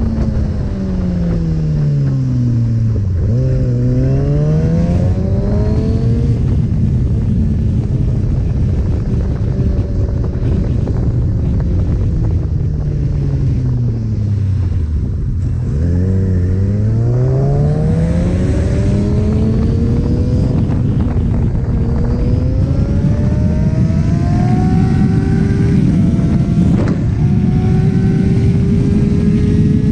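Sport motorcycle's inline-four engine heard from the rider's seat over steady wind rush. The engine note falls and climbs back twice, then rises in steps through the gears near the end.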